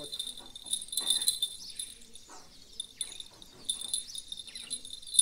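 Small bell on a fishing rod tip jingling in irregular bursts as a fish tugs at the line: a bite.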